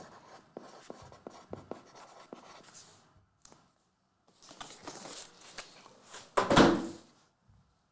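Hands handling trading cards and their plastic packaging: a run of small clicks and rustles, then after a short pause more rustling that builds to one loud crinkling burst about six and a half seconds in.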